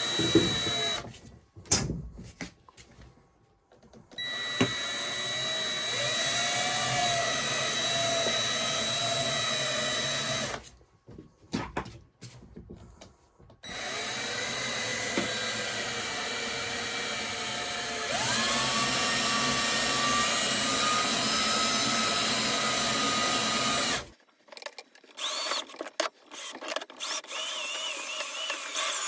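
Electric drill spinning the toothed roller of a small wire stripping machine, run in bursts: briefly at the start, for about six seconds, then for about ten seconds with its pitch stepping up partway through, as wire is fed through to slit its insulation. Short clicks and rattles near the end.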